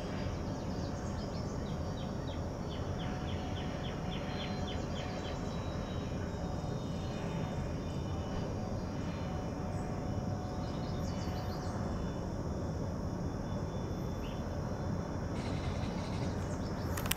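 Cessna Citation CJ3 business jet's twin turbofan engines heard from a distance as the jet rolls out after landing: a steady rumble with a faint whine. A bird chirps rapidly, about four times a second, in the first few seconds.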